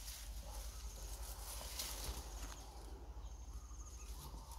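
Woodland ambience: dry leaves rustling and crackling, with a high, rapid pulsing trill near the end.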